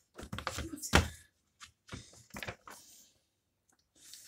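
Comic books being handled at a table. A quick cluster of knocks and thumps comes in the first second or so, followed by a few soft clicks and rustles of paper pages being turned.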